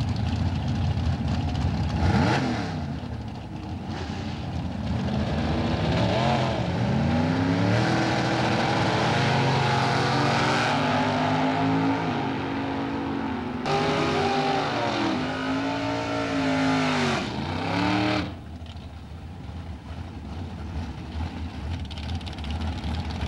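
Two drag-racing cars launching off the line and accelerating down the strip, engines revving up through the gears in repeated rising sweeps. Near the end the sound cuts abruptly to a quieter rumble of engines at the starting line.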